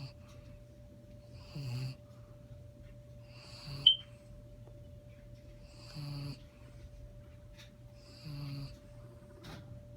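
Dog snoring in its sleep, one short snore about every two seconds or so. A brief sharp squeak near the middle is the loudest sound.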